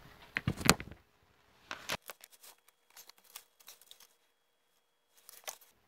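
Wire test leads and clips being handled and sorted: scattered light clicks and rustles, with short quiet gaps between them.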